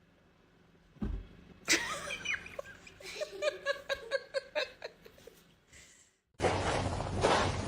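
A knock, then a person laughing in a rapid string of bursts, about four a second, fading out. Near the end the sound cuts to a loud, steady rushing noise.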